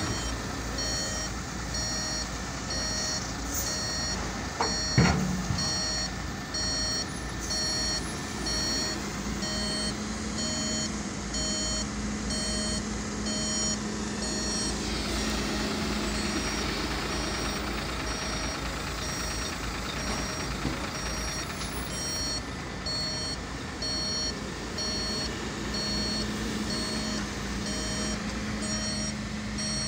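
Truck reversing alarm beeping steadily about twice a second over a running truck engine, with a single sharp knock about five seconds in.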